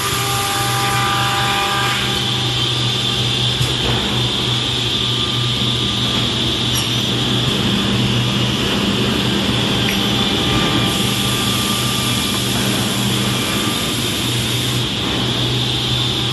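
Automatic edge banding machine running as a panel is fed through it: a steady mechanical hum with a higher whine over a constant rush of machine noise.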